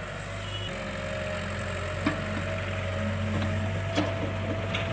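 Diesel engines of a working excavator and tractor running with a steady drone and a higher whine held over it. Two sharp knocks come about two and four seconds in, as the excavator bucket swings soil over the tractor trolley.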